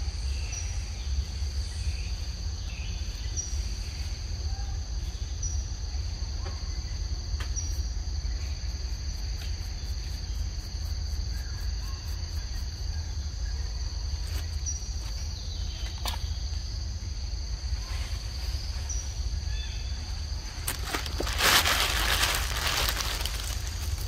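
Steady insect chorus in forest, two continuous high-pitched buzzing tones with small chirps every second or two, over a low rumble. About 21 seconds in, a louder burst of noise lasts about two seconds.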